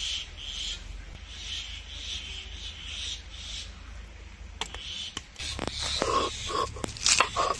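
Short, high scratchy strokes of fingers scraping ground turmeric paste across a stone grinding slab, then, from about five seconds in, sharp knocks and crunching as a stone roller crushes green chillies on the slab.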